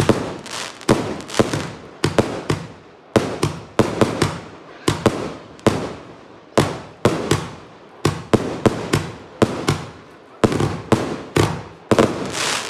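Aerial fireworks bursting overhead in quick succession, about two sharp bangs a second, each dying away before the next.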